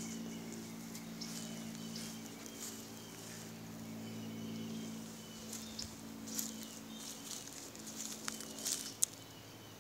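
Garden ambience: a steady low hum under a faint high chirp that repeats about every three-quarters of a second, with scattered light crackles of footsteps on bark mulch and dry leaves, a few sharper ones near the end.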